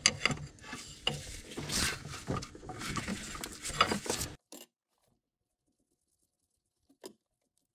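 A 19 mm open-end wrench clinking and scraping on a hydraulic hose fitting of the excavator's swivel joint: a quick, irregular run of small metallic clicks and knocks that cuts off abruptly a little over four seconds in, with one faint click near the end.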